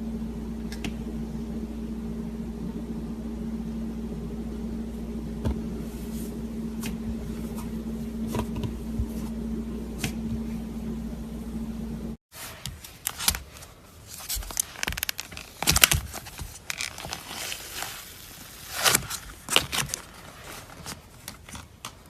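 A steady low hum with a few faint clicks, then, after a sudden cut about halfway through, cloud slime being handled: irregular soft crackles, squishes and sticky pops.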